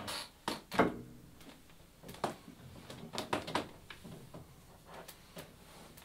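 Irregular knocks and clicks of glasses and objects being handled and set down on a wooden upright piano's top, a dozen or so sharp taps. The loudest knock, just under a second in, leaves a short low ring.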